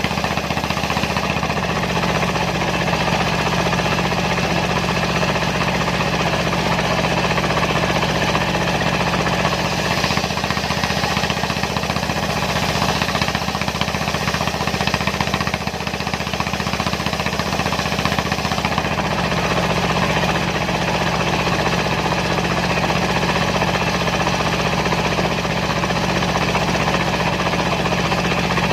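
Dongfeng stationary diesel engine running steadily under load, driving a homemade circular sawmill.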